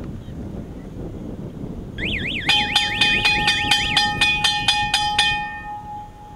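Electronic siren starts about two seconds in: a warbling tone sweeping rapidly up and down, joined by a loud multi-tone beeping about four times a second. The warble stops after a couple of seconds and the beeping fades near the end.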